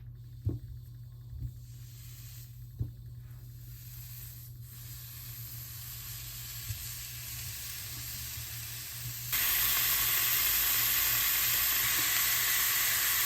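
Food sizzling in a pan: a faint steady hiss with a few light knocks in the first few seconds, then a sudden jump to a much louder, steady sizzle about nine seconds in.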